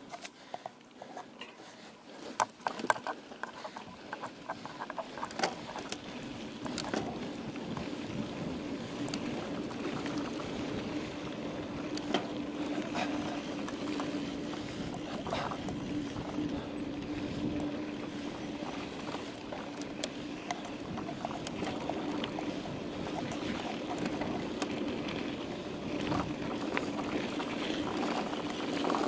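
Mountain bike riding over a dirt and sand trail. For the first several seconds the bike rattles and clicks sharply over the rough ground, then the tyres settle into a steady rolling noise with a constant low hum as the rider speeds up on the open track.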